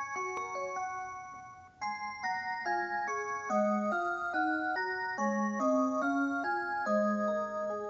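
Rhythm musical motion clock playing an electronic chime melody, a tune of clear bell-like notes at about two to three a second. The tune dips briefly about one and a half seconds in, then a new phrase begins.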